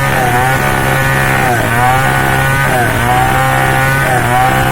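Chainsaw engine running at high speed while cutting timber into planks. Its pitch dips briefly and recovers about four times, as the saw loads in the cut.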